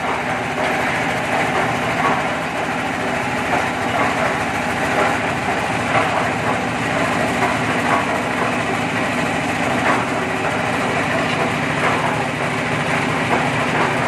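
One-bag concrete mixer running steadily with a constant low hum as its drum is tilted by the handwheel, with light knocks now and then.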